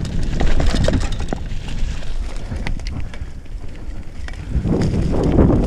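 Mountain bike rolling fast along a dirt trail: wind buffeting the microphone over a steady tyre rumble, with scattered clicks and rattles from the bike. A louder rush of noise starts near the end.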